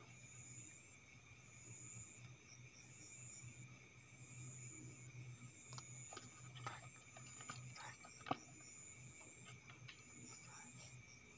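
Night insects such as crickets calling in a steady chorus, one pulsing call repeating about once a second over a continuous high trill. Several short clicks and knocks of handling come in the second half, the sharpest about eight seconds in.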